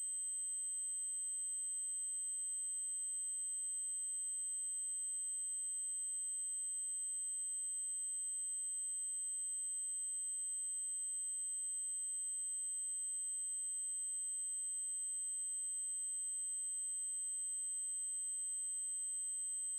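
Synthesized 8192 Hz triangle-wave tone: a single steady, very high-pitched tone held without change.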